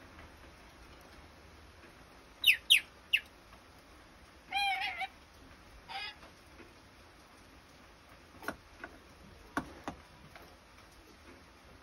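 Red lory giving three sharp, steeply falling squeaks, then a warbling call and a short call. Near the end there are four sharp taps as its beak knocks the hanging plastic ball toy.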